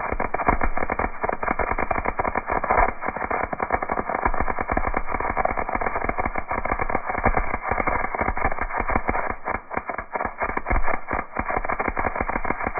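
MIG welding arc crackling steadily as a bead is laid, a dense, irregular sizzle of rapid crackles.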